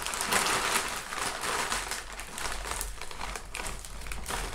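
Plastic Maggi instant-noodle pack crinkling as it is shaken and tipped out, with small clicks of dry noodle pieces dropping onto a plate. The crinkling is busiest in the first two seconds.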